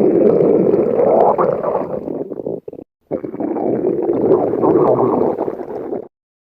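Stomach growling: two long, loud growls of about three seconds each, with a brief silent break between them.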